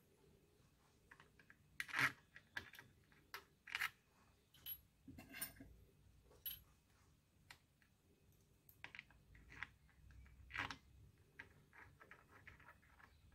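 Light metallic clicks and taps of a small hand tool and fasteners against a lathe DRO scale's aluminium housing as it is assembled, coming at irregular times, the loudest about two seconds in and near the end.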